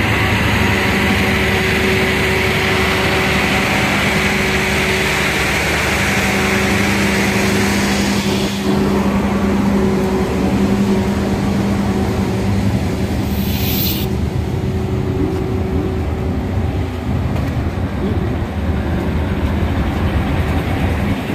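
Diesel train engine idling steadily, with a brief hiss about thirteen seconds in.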